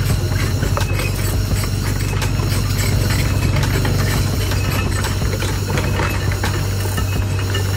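Heavy machine's engine running under load with a steady low drone, over a dense clatter of metallic clicks and clanks, as it tows the stuck works vehicle up out of the ditch.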